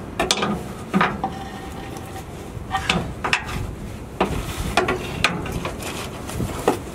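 Steel pry bar knocking and scraping against an exhaust hanger bracket while prying a rubber exhaust hanger off its metal shank: a string of sharp metallic knocks and clinks, some with a short ring.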